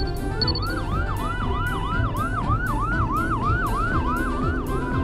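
Cartoon ambulance siren: a fast rising wail that drops back and repeats about three times a second. A short high beep sounds just before the siren starts.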